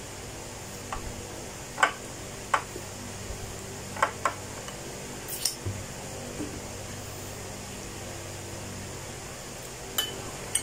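A metal spoon clinking against a glass bowl a handful of times as food is scooped up, over a steady low hum.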